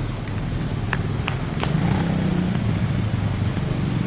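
Low, steady rumble of road traffic and vehicle engines, with three short sharp clicks a little after a second in; no horn sounds.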